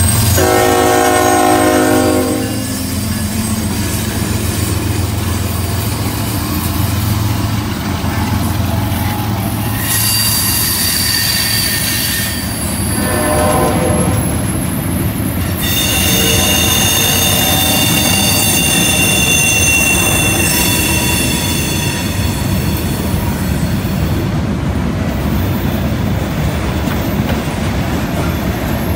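CN freight train passing on a curve. The diesel locomotive's horn sounds for about the first two seconds as the lead unit goes by, and the engines' low rumble fades out after about nine seconds. Freight cars then roll past with steady wheel-on-rail noise and high-pitched wheel squeal from the curve, strongest from about ten to twenty-two seconds.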